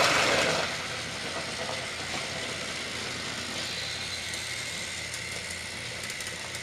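Battery-powered Trackmaster toy trains running on plastic track, a steady whirring motor hum. There is a brief loud rushing noise at the very start.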